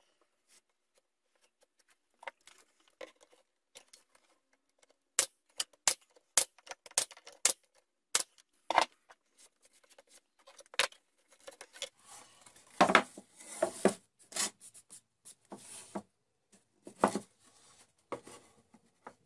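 Small hand work on wood: a run of sharp clicks and taps, then about a second later a stretch of rubbing and scraping against a wooden block, with a few knocks of wooden pieces being handled.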